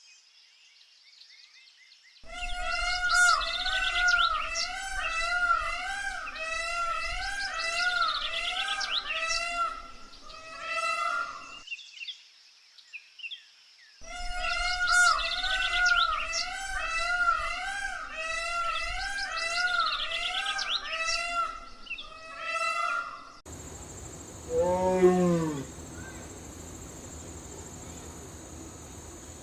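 Animal calls: a rapid series of rising-and-falling pitched calls, the same stretch heard twice with a short gap between. Near the end a steady high insect-like trill sets in, with a lower arched call over it.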